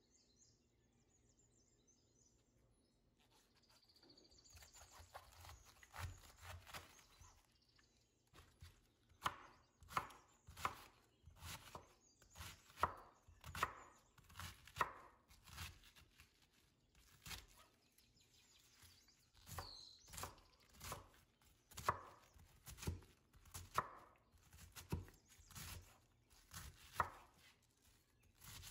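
Chef's knife cutting white cabbage on a plastic cutting board: soft slicing a few seconds in, then a run of crisp knife strikes against the board, one to two a second, as the shredded cabbage is chopped.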